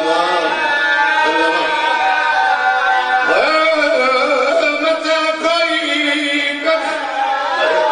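A man's voice chanting a Punjabi elegiac verse through a microphone in long held, wavering notes that bend up and down, in the sung style of a Shia zakir's majlis recitation.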